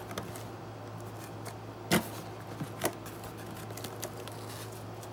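Hands picking and pulling at a taped cardboard shipping box, trying to get it open without a knife, giving a few sharp knocks and smaller clicks, the loudest about two seconds in. A steady low hum runs underneath.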